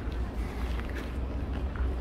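Outdoor city ambience: a steady low rumble of background traffic and wind on the microphone, with faint scattered taps and clicks.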